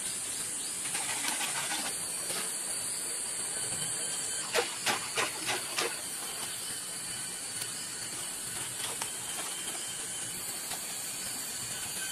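Live crabs being swished and rinsed in a shallow stream: a quick run of about five splashes some four and a half seconds in, over a steady high hiss.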